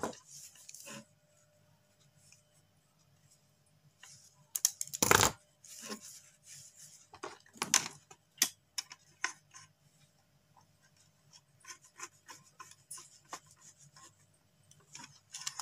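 Small screwdriver scraping and turning on the metal terminal screws of wall switches, with scattered clicks and taps of wire and tools against the board and a louder knock about five seconds in.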